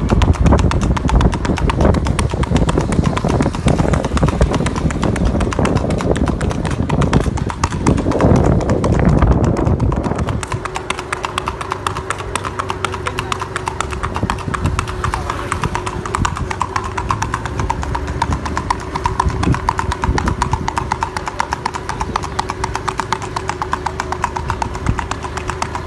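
A stallion's hooves clip-clopping steadily on a paved street at the marcha picada, a smooth four-beat ambling gait.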